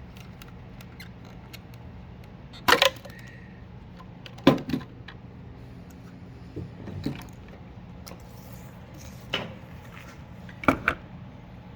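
Several sharp plastic clicks and knocks, spread out, as small plastic shims are worked into the clips of a Subaru fuel pump hanger's basket, over a faint steady hum.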